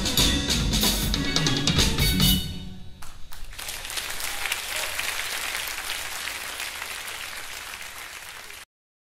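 Jazz band of close-miked drum kit, steel pan, bass guitar and piano playing the final bars, ending about three seconds in. Then audience applause, fading slightly until it cuts off abruptly near the end.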